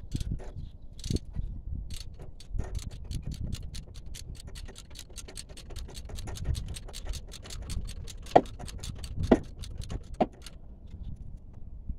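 Hand ratchet clicking at a quick even pace, about six clicks a second, as the brake caliper guide bolts are run in. Near the end come three louder metallic knocks that ring briefly.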